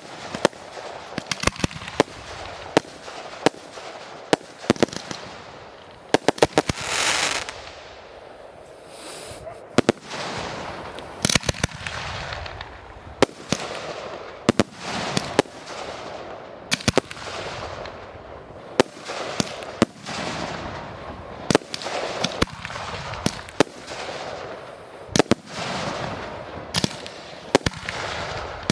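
Fireworks display: aerial shells bursting with sharp bangs every second or so, and quick runs of reports with a hissing crackle about a quarter and about two fifths of the way through.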